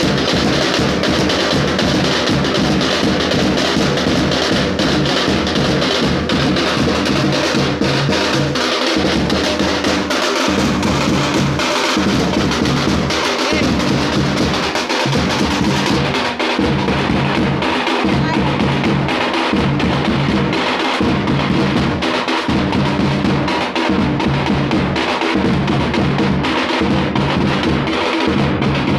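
A group of drummers playing slung drums together in a loud, continuous, driving rhythm with a steady, regular low beat.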